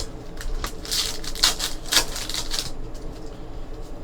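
Trading card box and pack wrappers being handled and torn open: a run of crinkling, tearing rustles for nearly three seconds, then only a faint steady hum.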